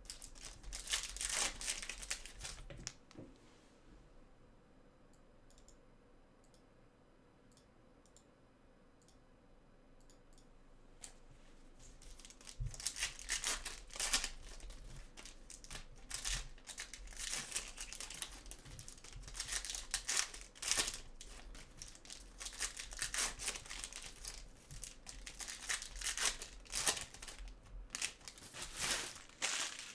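Trading card packs being torn open, their foil wrappers crinkling, in bursts of tearing and rustling with a lull of several seconds a few seconds in.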